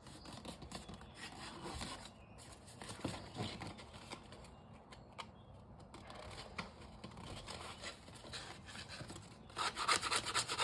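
Folded paper rustling and rubbing as it is handled and pressed together, with small clicks, louder for about the last second.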